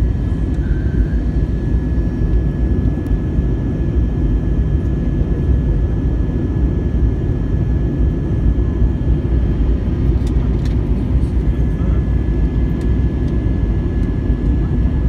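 Steady cabin noise inside an Airbus A321 airliner in descent: a low rumble of engines and airflow with a thin, steady whine above it.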